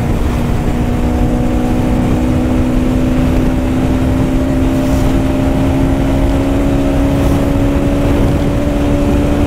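Bajaj Pulsar NS200's single-cylinder engine pulling steadily at speed, its note rising slowly, over heavy wind rush on the microphone.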